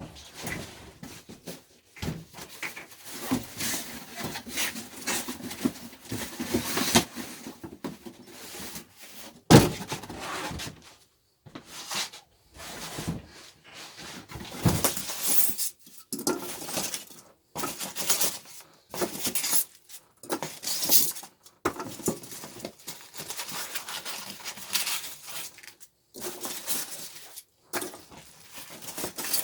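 Unboxing noise: packaging and parts being handled, with irregular rustling, scraping and clattering and one sharp knock about ten seconds in.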